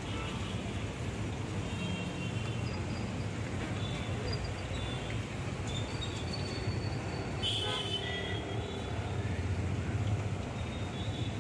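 Steady rumble of street traffic around a roadside food stall, with one brief sharp sound about seven and a half seconds in.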